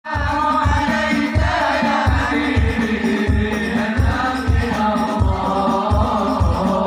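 A group singing sholawat, Islamic devotional praise songs, in chorus over a steady low drum beat of about two strikes a second.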